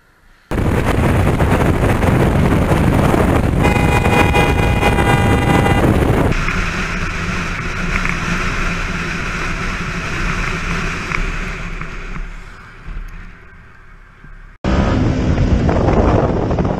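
Wind rushing over a motorcycle helmet camera at road speed. A vehicle horn blares for about two seconds some three and a half seconds in. The noise then drops back and fades, cuts off, and a different ride's wind and engine noise starts abruptly near the end.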